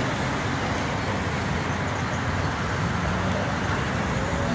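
Steady noise of city street traffic, with cars driving past on a busy multi-lane road.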